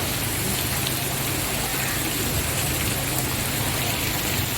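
Steady rain falling, an even hiss with scattered drop ticks on hard surfaces.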